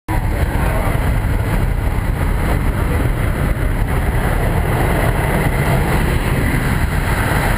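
Steady, loud drone of a small jump plane's engine and propeller mixed with rushing air, heard from inside the cabin.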